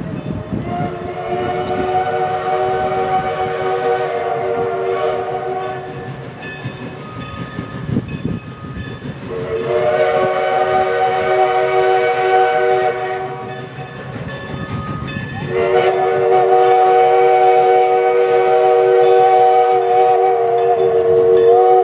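Everett Railroad steam locomotive No. 11's whistle blowing three long blasts, several notes sounding together as a chord, the last blast the loudest. A low rumble from the approaching train runs beneath.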